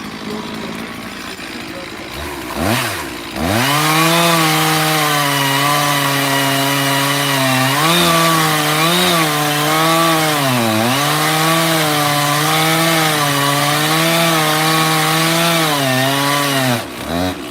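Stihl MS460 two-stroke chainsaw idling, revved once, then held at full throttle bucking an oak log for over ten seconds. Its note dips in pitch a few times as the chain loads up in the cut. It drops back to idle near the end.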